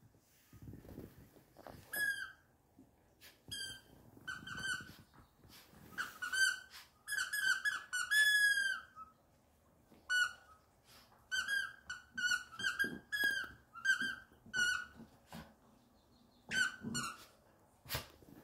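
Squeaker inside a plush elephant dog toy squeaking over and over in quick bursts of short, high squeaks as a Bichon Frise chews it.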